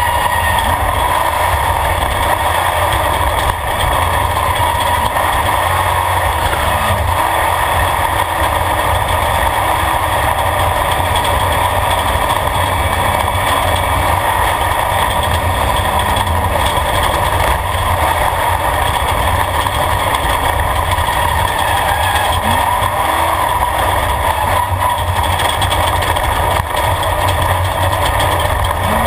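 Off-road race vehicle's engine running hard and steady, heard from inside the open roll-caged cab, mixed with the noise of driving over a rough dirt track.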